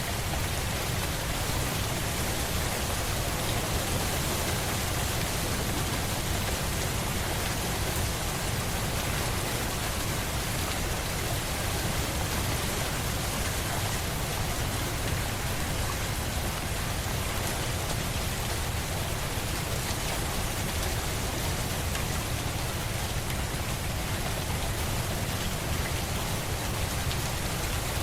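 Steady rain falling on a surface, an even hiss with no pauses or changes.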